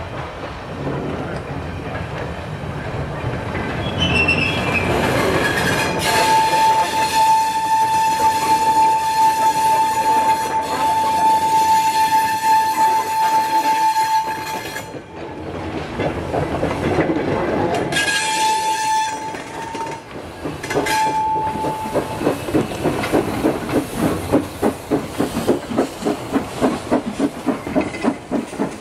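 A slow goods train passing close by: a long, steady, high-pitched tone that cuts off sharply, then two brief ones. Near the end come the rhythmic exhaust beats of a 0-4-0 saddle tank steam locomotive drawing past, about two a second.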